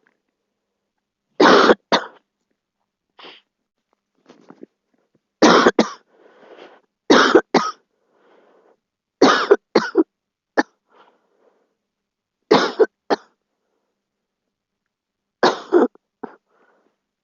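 A girl coughing repeatedly: about six bouts spaced two to three seconds apart, most of them two quick coughs in a row, with softer breaths and a couple of faint coughs in between.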